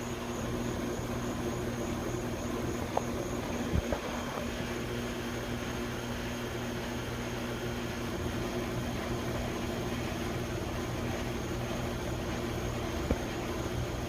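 Steady machine hum with a low pitched drone, broken by a few short knocks about three to four seconds in and again near the end.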